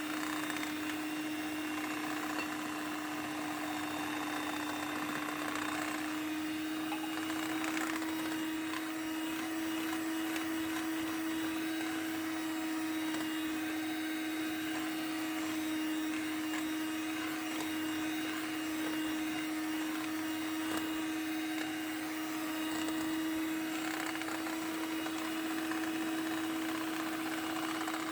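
Electric mixer running steadily at an even speed, its motor hum rising slightly in pitch a few seconds in, as it beats eggs and sugar together until the sugar dissolves.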